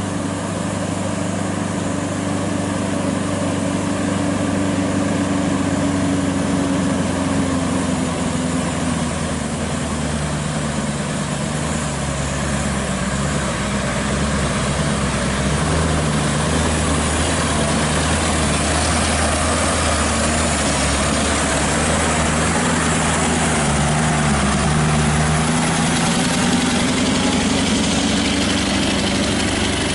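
Scania R-series tractor unit's diesel engine running as it hauls a heavy lowboy trailer past at crawling speed: a steady low drone whose pitch dips about a third of the way in and climbs again toward the end.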